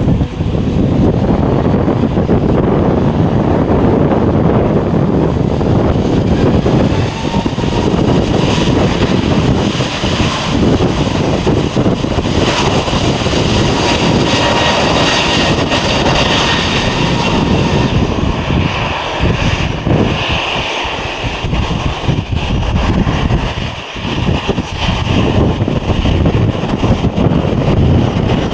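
Jet aircraft engines running loud and close, a steady rush with a faint whining tone above it that grows brighter partway through.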